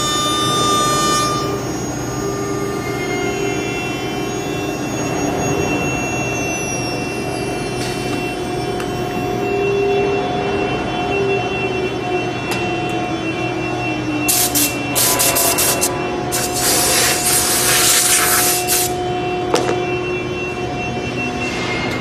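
CNC router with a horizontal milling spindle running: a steady machine noise with a whining spindle tone, one whine sliding down in pitch partway through. Several loud bursts of harsh cutting noise come between about 14 and 19 seconds in.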